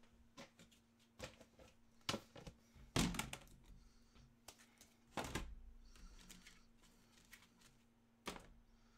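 Scattered light clicks and knocks of objects being handled and set down on a desk, with louder thuds about three and five seconds in. A faint steady hum runs underneath.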